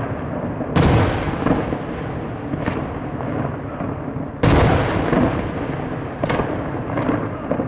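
Aerial firework shells bursting in a display: a heavy boom about a second in and another about four and a half seconds in, with smaller bangs between, each trailing off in echo over a continuous rumble.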